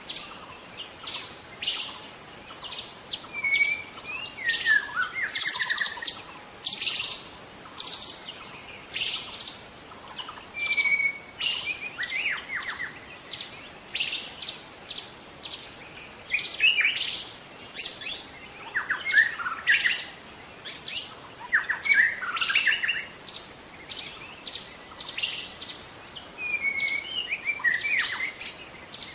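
White-rumped shama singing continuously: a varied song of clear whistled phrases mixed with quick, high chirping notes, coming in phrases about every second.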